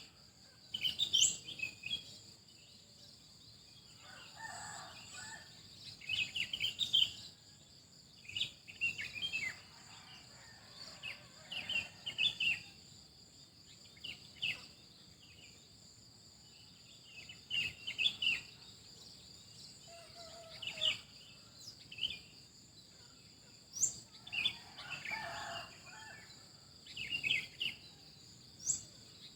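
Songbirds chirping in short repeated phrases every second or two, over a steady high insect drone, with a few lower bird calls mixed in.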